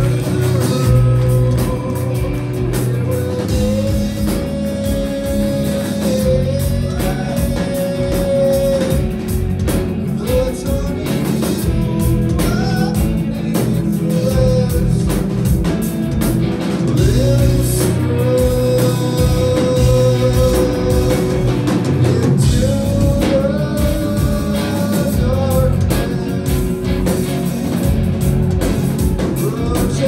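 Live rock band playing, a singer holding long notes over electric guitar and drums, recorded on a phone's microphone from a theatre balcony.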